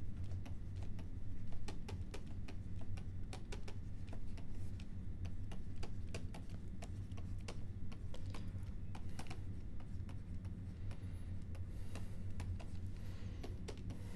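Stylus tapping and scratching on a tablet screen during handwriting: a quick, irregular run of small clicks over a steady low hum.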